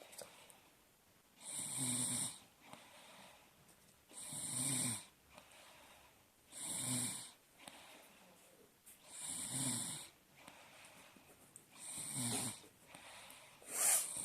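A sleeping person snoring: six snores, one every two to three seconds, with quiet breathing between them; the last is the loudest.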